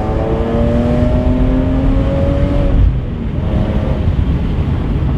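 BMW E46 M3's S54 straight-six running through an aftermarket Top Speed muffler under acceleration: the engine note rises steadily for almost three seconds, then drops sharply and settles to a lower, steadier note.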